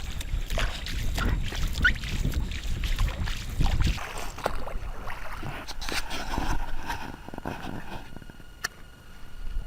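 Small fishing boat on the water: scattered knocks and water noise. A heavy low rumble runs through the first four seconds, then drops away, leaving lighter knocks.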